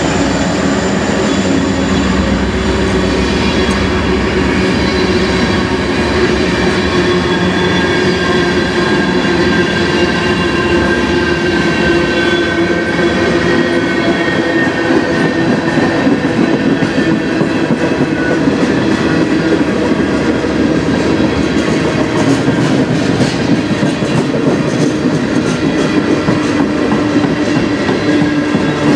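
Loaded freight cars of a CN manifest train, mostly tank cars with a coil car, rolling steadily past close by. The steel wheels on the rails make a continuous loud rumble, with rapid clicking over the rail joints and a faint steady ringing whine from the wheels.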